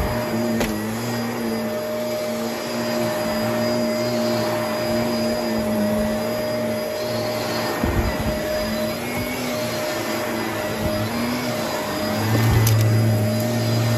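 Shark vacuum cleaner running while it is pushed over carpet: a steady motor hum whose pitch wavers slightly. A few low bumps come about eight seconds in, and a deeper, louder hum sets in near the end.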